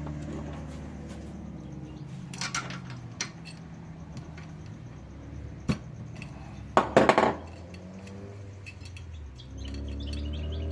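Metal tools clinking and clattering: a socket and wrench being handled to pull a spark plug, with scattered sharp clinks and the loudest cluster about seven seconds in, over a low steady background hum.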